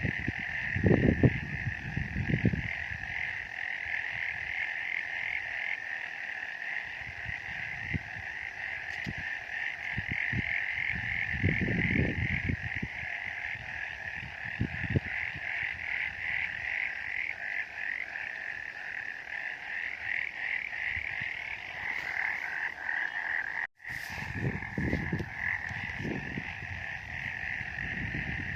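Chorus of frogs calling: a dense, steady trill of rapid pulsing notes, with a few low rumbles underneath and a brief break in the sound about three-quarters of the way through.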